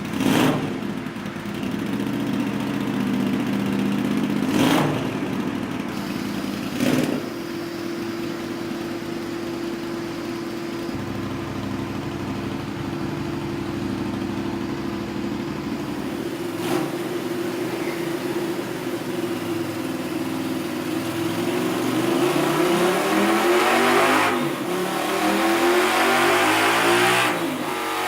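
Honda CX500 V-twin, rebuilt with Murray's carbs and a custom 2-1-2 exhaust, running on a dyno: steady running with three quick throttle blips in the first seven seconds, then two long pulls near the end with the engine note rising steadily each time.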